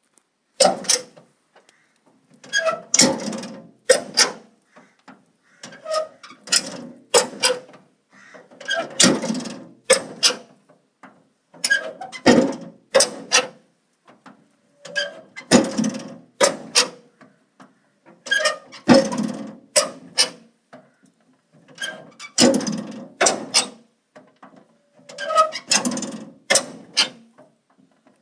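A metal door being opened again and again, about every three seconds. Each opening is a cluster of sharp metallic clicks and rattles with brief squeaks.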